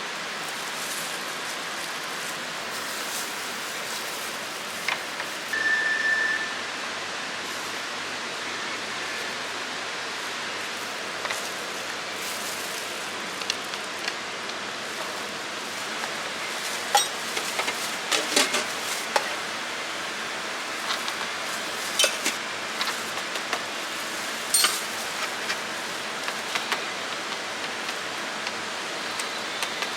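Steady hiss with scattered light clinks and clicks, and a single short beep about six seconds in.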